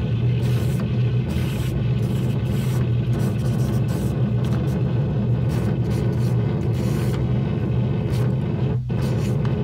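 Amplified painting: brush strokes picked up and amplified come through as irregular short scraping swipes over a loud, steady low hum from the amplification.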